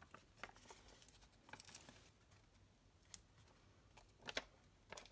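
Faint, scattered clicks and light crinkles from a sheet of foam adhesive dimensionals being handled.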